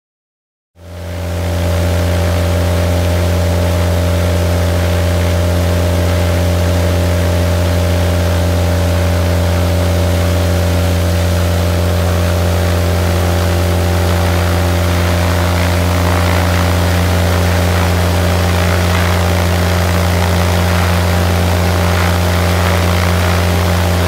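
Viking 130 four-cylinder aircraft engine running steadily at constant speed, driving a spinning propeller. The sound comes in abruptly just under a second in and holds an even pitch throughout.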